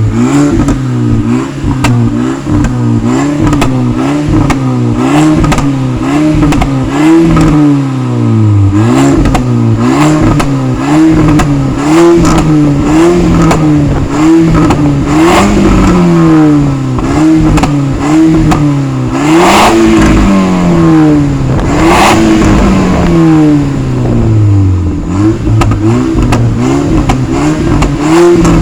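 GTI's exhaust as the engine is revved over and over, each rev rising quickly and falling back, with sharp pops and crackles on the overrun as the revs drop; the loudest cracks come about halfway through and again a few seconds later.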